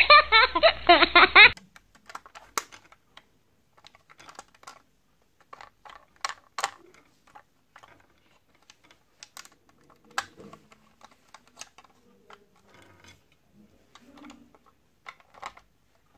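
A hard plastic toy train being handled: irregular sharp clicks and knocks as it is turned over in the hands and set down on its plastic track. A loud, voice-like sound with repeated rising pitches fills the first second and a half.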